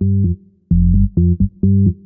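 Synth bass patch on a Roland FA-06/FA-08 workstation keyboard playing a riff of short, punchy low notes in a steady rhythm, with a brief gap about half a second in.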